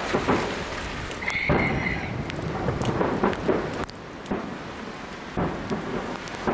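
Aerial fireworks display: shells bursting with a string of deep bangs over a continuous crackle. There is a short high whistle about a second and a half in.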